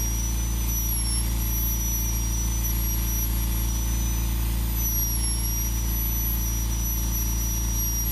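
Handheld rotary tool running steadily with a high-pitched whine over a low hum, the whine dipping slightly in pitch twice as the bit bears on the wood while burnishing carved fish scales on a wooden slingshot grip.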